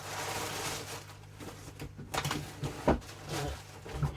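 Handling of small tools and their packaging: a brief rustle, then several light, separate knocks and clicks as items are picked up and set down.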